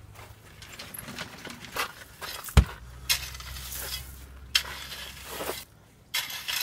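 Metal garden rake scraping and raking through crushed stone, several separate strokes with the gravel rattling and one sharper knock about two and a half seconds in, over a low hum in the middle.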